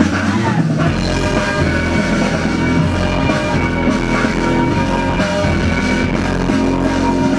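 Loud music with a steady drum beat, playing for a breakdancer's round in a battle.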